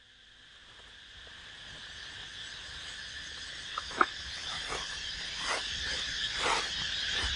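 Insect chorus, a steady high hiss fading up in level, with a few short crackles over it from about four seconds in.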